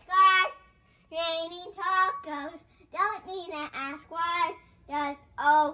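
A boy singing a song without words to it in the transcript, in short sung phrases with brief pauses between them.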